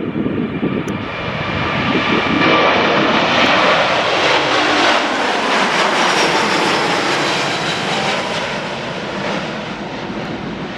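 Airbus A350-900's Rolls-Royce Trent XWB jet engines at takeoff thrust as the airliner climbs out overhead: a loud, broad jet roar that swells about two seconds in, stays loudest through the middle, then eases as the aircraft moves away. Wind buffets the microphone at first.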